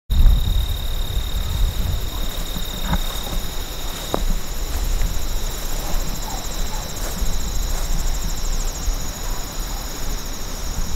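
Steady high trilling of insects in tall summer grass, several overlapping trills, one high thin tone dropping out about four seconds in, over an uneven low rumble on the microphone.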